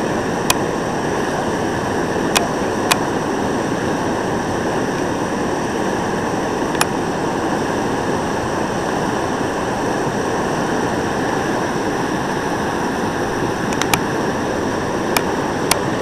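Bull Falls, a Class III whitewater rapid, rushing steadily. A few short sharp clicks stand out above it at scattered moments.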